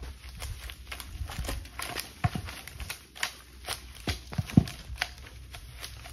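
Large firewood rounds tumbling down a steep slope: an uneven series of thuds and knocks as they bounce over the ground and brush, with one loud thud about halfway through as a round crashes into the pile of rounds at the bottom.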